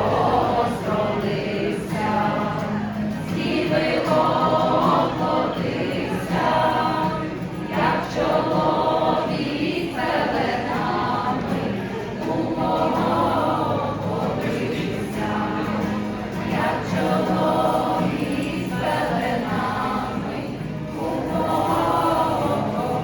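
A choir singing a slow song, with steady low notes held beneath the voices.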